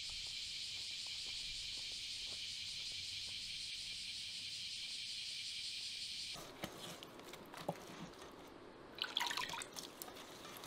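A steady, high chorus of insects with faint ticks beneath it. About six seconds in it cuts off and gives way to hands squelching and scraping a wet, gritty mix in a metal bowl, in small irregular clicks with a busier stretch near the end.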